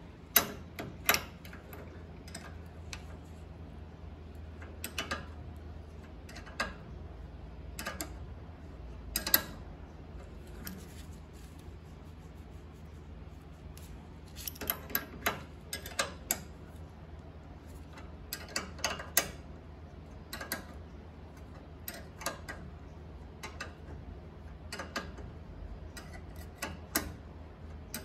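Adjustable wrench clicking and clinking against a steel tie-rod sleeve clamp bolt as it is worked tight, in scattered metallic ticks with a few quick runs. A steady low hum lies underneath.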